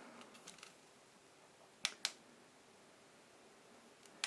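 Button of an H13 neckband fan clicking: a few light clicks, then two sharp double clicks about two and a half seconds apart, over the fan's faint, quiet running hiss.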